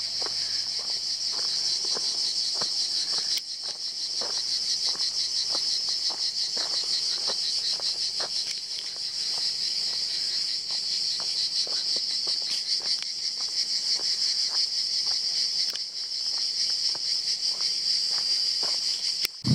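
Chorus of cicadas, a steady shrill buzz with a fast pulse, over footsteps on a stony dirt track at about two steps a second. The sound breaks off abruptly for a moment a few times.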